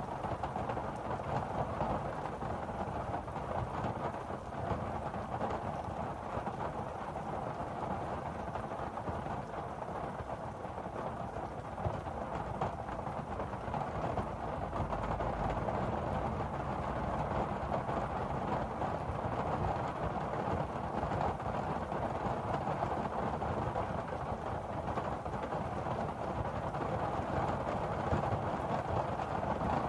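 Steady, muffled rushing noise like rain, even throughout with no distinct strikes or tones.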